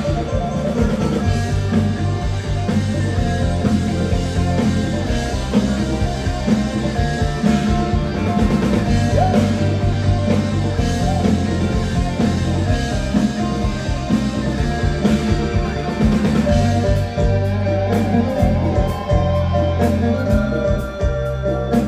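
Live band music with a steady drum-kit beat and a strong bass line, played loud.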